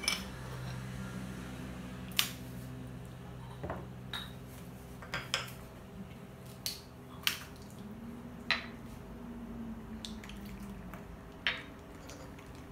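Yixing clay teapot lids and small porcelain tea cups clinking as they are handled on a tea tray: about ten short, separate clinks over a low steady hum.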